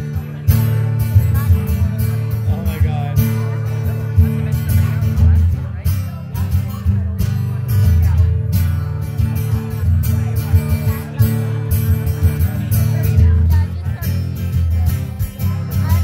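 Acoustic guitar strummed with a steady rhythm in an instrumental break between sung verses.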